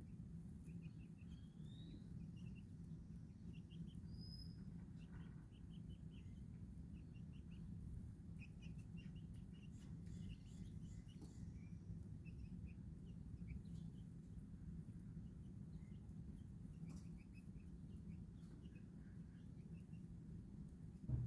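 Faint chirping of baby chicks and small birds: short high notes in quick runs, with a few higher sweeping calls, over a steady low rumble. A short low thump near the end.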